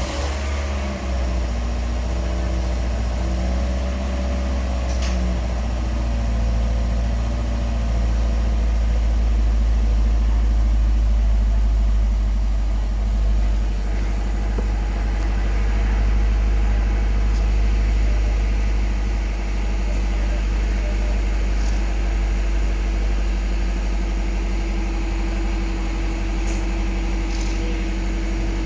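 Toyota Corolla Fielder's four-cylinder engine idling steadily just after being started, running on new spark plugs and new ignition coils on cylinders 2 and 4 fitted to cure misfires.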